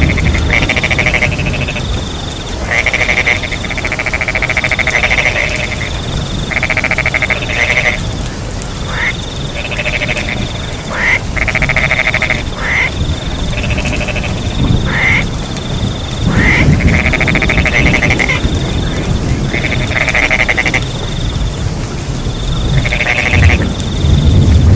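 A chorus of frogs croaking over and over in calls about a second long, some ending in short rising sweeps, with a high steady trill of crickets. Steady rain and a low rumble run underneath.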